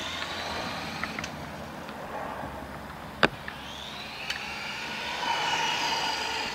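Electric RC car's 15-turn 540 brushed motor and drivetrain whining as it is driven, the pitch rising and falling with the throttle and loudest near the end. One sharp click about three seconds in.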